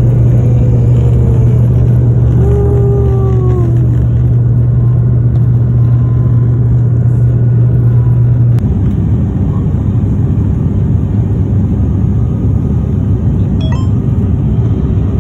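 Aircraft engine and propeller drone heard inside the passenger cabin during the climb, loud and steady, with a strong low hum that drops away a little past halfway, leaving a rougher rumble.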